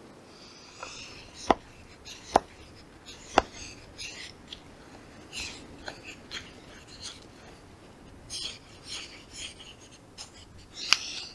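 Knife blade shaving curls off a hard wood stick: short, hissy scraping strokes every second or so, with three sharp clicks in the first few seconds.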